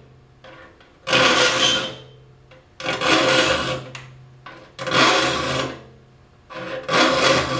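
Saw file rasping across the teeth of a Disston D8 rip saw, sharpening them: four even file strokes about two seconds apart, each lasting about a second.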